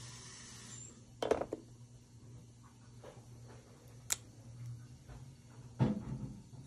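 Low steady room hum with a few small handling sounds: a brief rustle about a second in, a single sharp click around four seconds in, and a louder knock and rustle near the end as a plastic paint bottle is picked up and handled.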